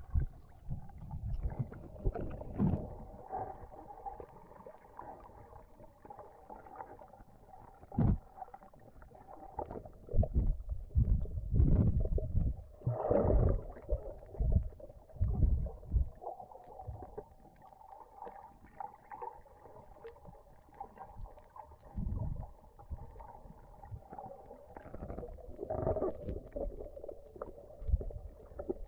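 Muffled underwater sound from a camera in a waterproof housing: irregular low rumbles and sloshes as water moves past it, with a faint steady hum in two stretches, the first starting a few seconds in.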